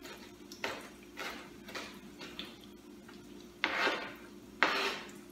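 Irregular clinks and knocks of kitchen utensils against cookware, about seven in all, the two loudest past the middle, over a steady low hum.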